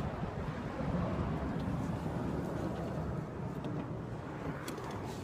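Steady low rumble of wind and traffic on a handheld phone's microphone, with a few faint clicks from the phone being handled.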